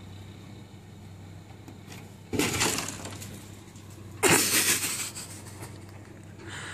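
Two sudden crunching crashes about two seconds apart, the second the louder: a cat scrambling down off a frost-covered car as icy snow breaks loose and scrapes on the metal. A low steady hum runs underneath.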